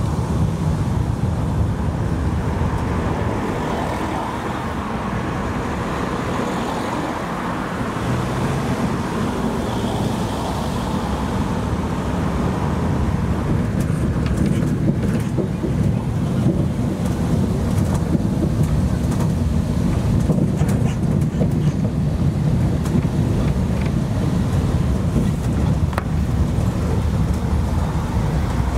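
Tractor-hauled road train driving along, a steady low engine rumble with road noise, heard from aboard one of its carriages.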